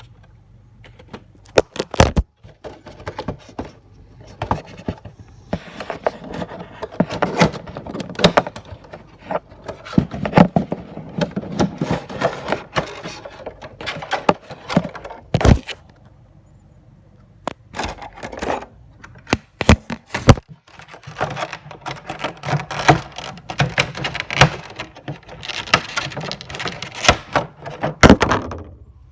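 Handling and opening a Funko Pop box, its cardboard and plastic insert rustling and scraping, with many sharp clicks and knocks and a few short pauses.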